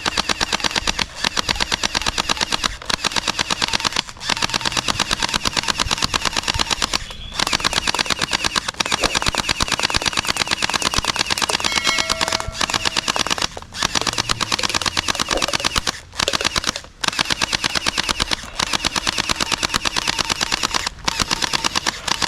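Toy Thompson machine gun firing in long bursts: a rapid, even rattle of shots, broken by short pauses between trigger pulls.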